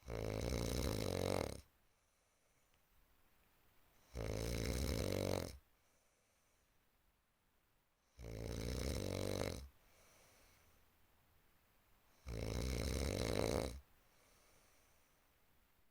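Loud snoring: four long, fluttering snores evenly spaced about four seconds apart, each lasting about a second and a half, with quiet gaps between.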